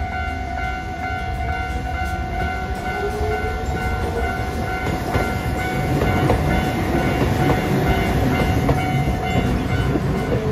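A Hiroden 3950-series Green Liner articulated tram runs past, its wheels rumbling and clattering on the rails, louder from about halfway through, with a faint rising motor whine a few seconds in. A level-crossing alarm rings steadily over it.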